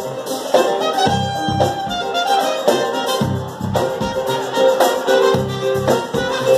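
Live band playing, horns over bass and drums with a steady beat.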